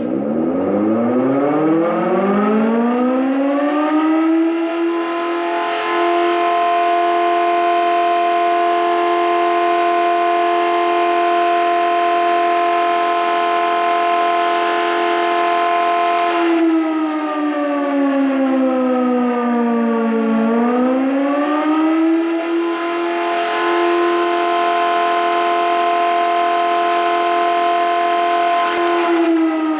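Emergency warning siren winding up in pitch over about four seconds and then holding a steady wail made of several tones. About halfway through, it sinks in pitch for a few seconds, climbs back up and holds again, then starts to wind down near the end.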